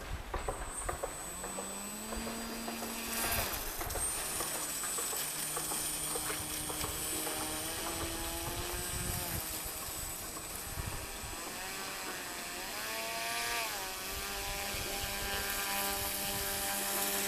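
Radio-controlled model sled's small electric motor whining, its pitch rising and falling several times as the throttle is worked.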